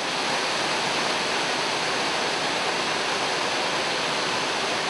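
Waterfall pouring over a rock ledge into a pool, a steady, even rush of falling water.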